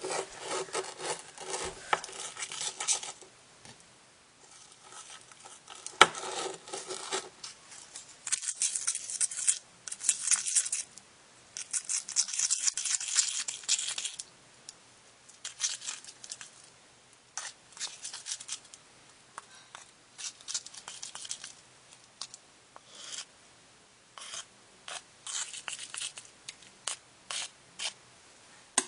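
A chopstick stirring a gooey mix of gel hand soap and baking soda in a container, in irregular bursts of scraping and clicking against the container, with short pauses between them.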